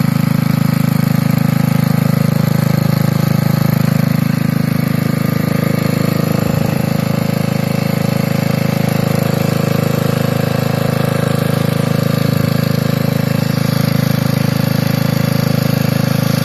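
Small air-cooled engine of an old machine running steadily at idle after a cold start, its note even and unchanging.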